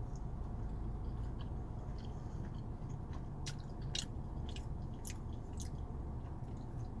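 Close-up chewing and biting on a burrito, with wet mouth clicks scattered through, several in a cluster around the middle, over a steady low hum.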